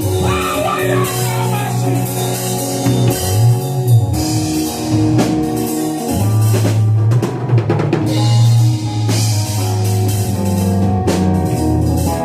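Gospel worship music played by a band, with a drum kit (bass drum, snare and cymbals) over a bass line holding long low notes.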